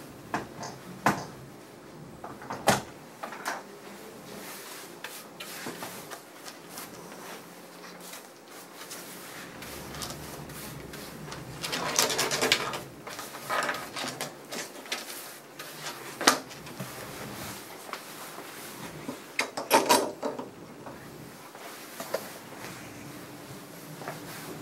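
Grooming shears snipping in short, scattered clicks as a small dog's coat is tidied, with two louder rattling bursts of about a second, one near the middle and one later on.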